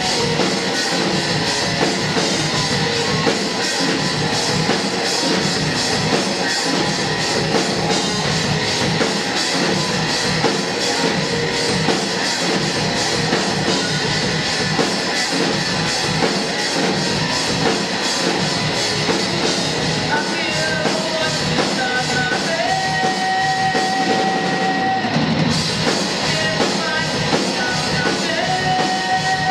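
Live rock band playing loud electric guitars and drums. In the last third a lead part holds long high notes over the band.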